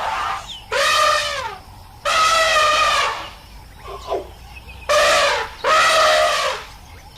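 An animal calling over and over: four loud, drawn-out, pitched calls, each under a second long and wavering slightly, with the pitch dropping at the end, and a short fainter call in between.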